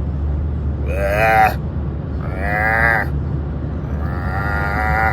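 A kitten making weird, drawn-out cries: three pitched calls that rise and fall, about a second and a half apart, the last one the longest. A steady low hum runs underneath.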